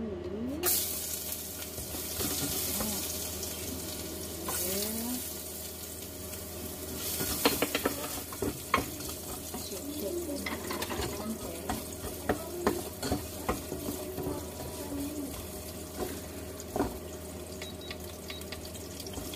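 Chopped garlic tipped into hot oil in a metal saucepan, sizzling from about a second in, then stirred with a spoon that clicks and scrapes against the pan again and again.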